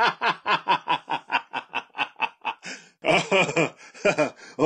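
A man laughing: a long run of quick, even chuckles, about five a second, then a louder burst of laughter about three seconds in.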